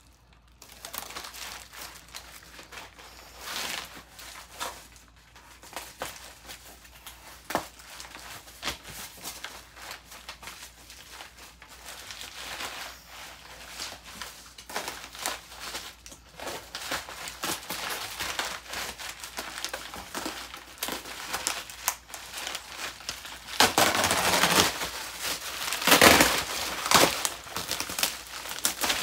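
Heavy plastic bubble wrap crinkling and crackling as it is cut and pulled away by hand. It is loudest in two spells a few seconds before the end.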